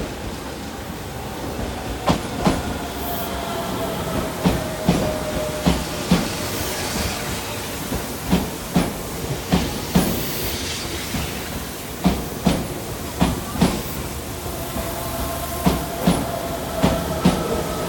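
Tobu 100 series SPACIA electric train passing slowly through a station, its wheels clicking over rail joints in regular close pairs about every two seconds over a steady rumble. A faint whine rises and falls underneath.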